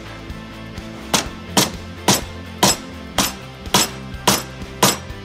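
Dead blow hammer striking the steering stem bearing installation tool in a steady rhythm, about two blows a second starting a second in, driving a new roller bearing down the steering stem until it seats.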